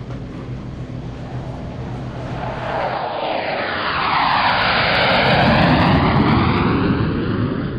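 Airplane passing close by, its engine noise swelling to a peak about five seconds in with a sweeping, phasing rush, then easing off.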